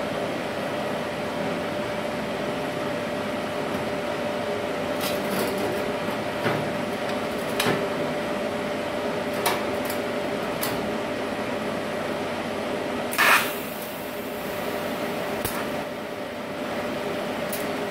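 Steady hum of the cooling fans of a TIG welding inverter and its water-cooling unit running idle, with a steady tone through it. Scattered short knocks and clanks of a steel pipe and a welding torch being handled, the loudest a brief noisy burst about 13 seconds in.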